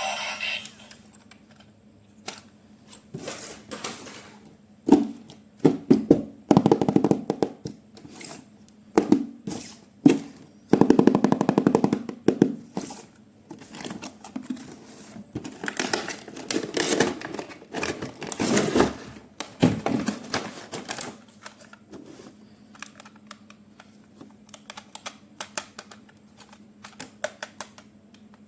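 Irregular clicks, knocks and rattles of plastic toy parts and packaging being handled, in dense clusters through the middle, thinning out near the end, over a faint steady hum.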